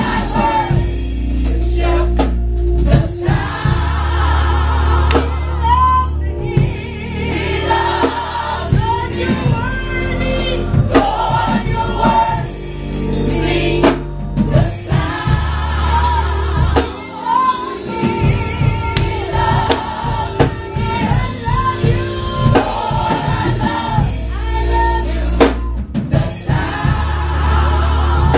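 Gospel choir singing with a live band of drum kit and bass.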